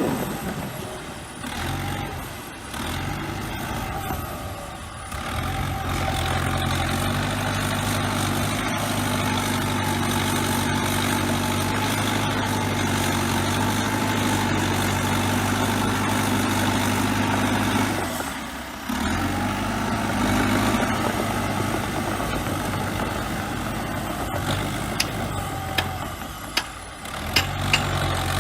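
Bulldozer diesel engine running steadily, dropping away briefly a few times, with a few sharp clicks near the end.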